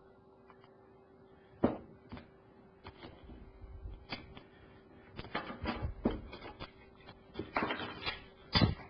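Irregular clicks and knocks of plastic and metal parts being handled and worked apart as a microwave oven's control panel keypad is opened, coming in scattered single taps and then quicker clusters in the second half.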